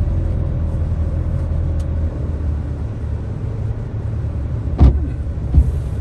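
Fiat Ducato campervan running on the road, its engine and road rumble heard from inside the cab, the engine note shifting about two seconds in. Two short knocks come near the end.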